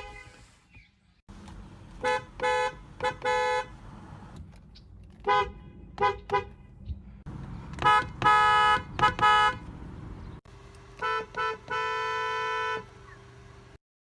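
Car horns honking in four quick runs a few seconds apart, each a mix of short toots and longer blasts over road noise; the last run ends in a held blast of about a second and a half.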